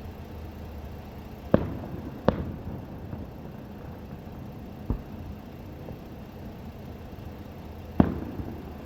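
Fireworks shells bursting in the sky: four separate sharp booms, each trailing off in an echo. Two come close together early on, a fainter one falls near the middle, and a loud one comes near the end.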